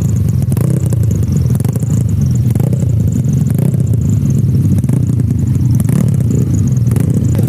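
Motorcycle engines running steadily, with a few brief sharp knocks or pops.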